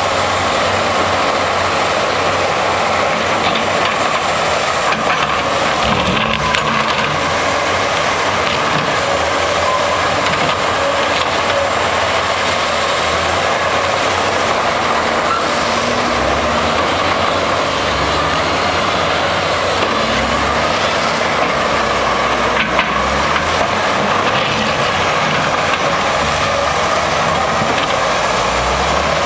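XE210 hydraulic excavator running, a steady engine and hydraulic drone with the low rumble swelling and easing, and a few scattered knocks.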